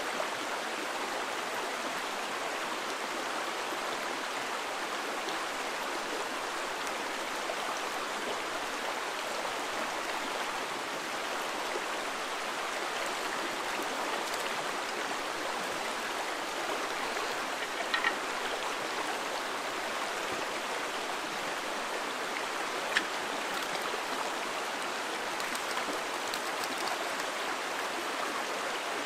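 Steady rush of a small, rocky freestone stream flowing over stones. Two brief sharp ticks stand out a little past the middle, a few seconds apart.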